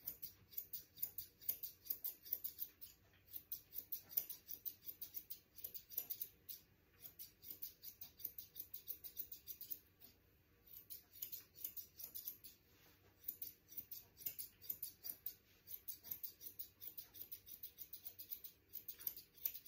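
Grooming scissors snipping through a long-haired cat's fur, about four quick snips a second in runs broken by brief pauses.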